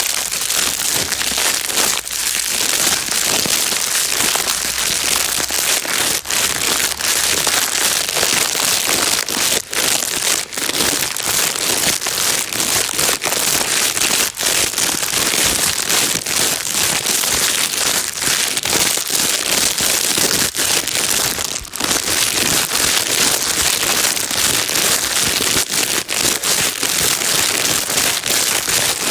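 Plastic bag being crinkled and rustled without a break, a dense high crackling with many small sharp crackles, played as soothing noise for a crying baby.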